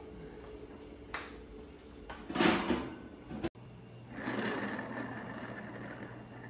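A kitchen cloth is handled over an upturned aluminium tube pan on a wire cooling rack: a faint click, then a short, louder rustling scrape a couple of seconds in. After an abrupt cut, a steady low hum of room tone follows.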